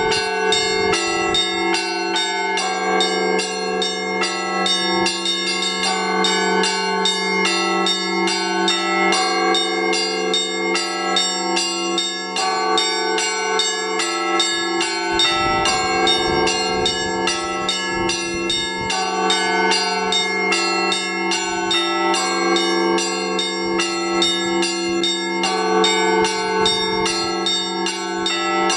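Russian Orthodox church bells rung by hand in the Rostov tradition. Rapid clapper strikes on the smaller bells run in a repeating rhythmic pattern over the steady hum of the larger bells, and the pattern shifts about every three seconds.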